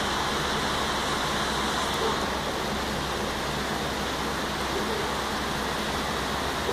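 Heavy rain falling in a steady, dense hiss.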